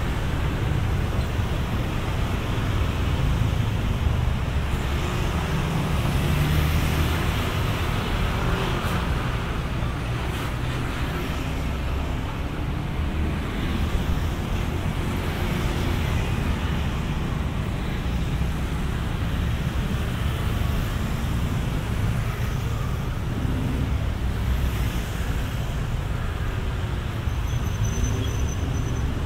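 Road traffic noise: a steady rumble of passing vehicles, with no distinct horn or impact standing out.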